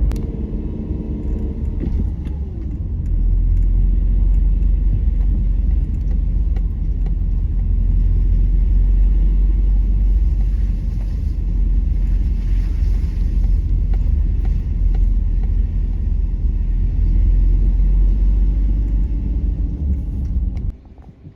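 Steady low rumble of a car being driven, road and engine noise heard from inside the cabin. It cuts off abruptly near the end.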